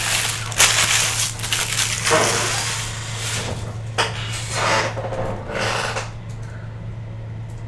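Crinkling and rustling of foil card-pack wrappers being handled, in a string of bursts over about six seconds that then die away, over a steady low electrical hum.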